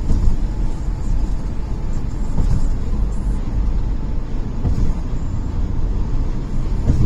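Steady low rumble of tyres and engine heard from inside a car's cabin while driving at highway speed.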